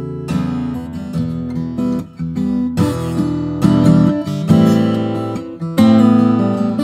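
Dion No. 04 acoustic guitar with Indian rosewood back and sides and an Italian spruce top, played solo: chords and melody notes are plucked and left to ring, over a low bass note held through the first few seconds.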